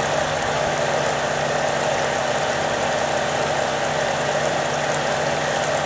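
UHF vibrating gold concentrator table running: a steady machine hum with water washing across the deck.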